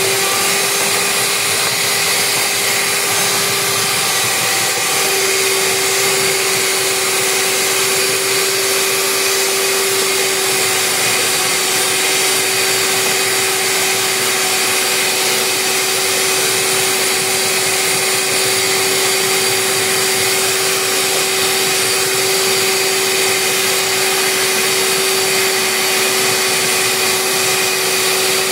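Mondial Prática 400 W stand mixer running at a steady speed, its beaters whisking eggs and sugar into batter, with a steady motor whine.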